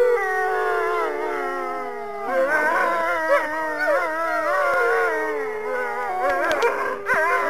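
Wolves howling: several long, drawn-out howls at different pitches overlapping, one held steady while another slides down in pitch, with a wavering, yipping stretch in the middle.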